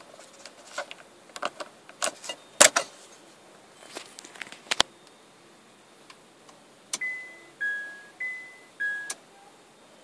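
Sharp plastic clicks and taps as the vanity mirror light's lens cover is pressed back into its housing. About seven seconds in, an electronic chime sounds four ringing notes that die away, high then low, twice.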